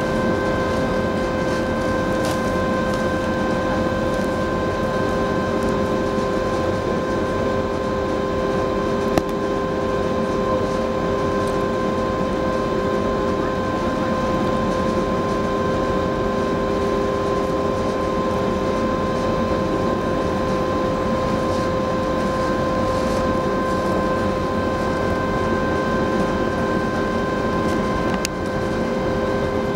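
The cruise ferry Silja Symphony's engines droning as she slowly pulls away: a constant, even hum with several steady tones.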